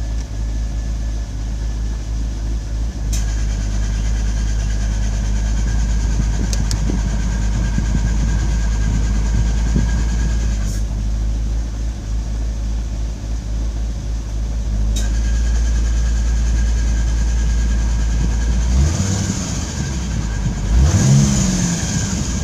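Chevrolet Corvette C5 Z06 V8 idling with a high whine from the air-conditioning system. The whine cuts in with a click about three seconds in, drops out near eleven seconds and comes back around fifteen seconds, as the compressor clutch cycles. Near the end the engine is revved twice briefly.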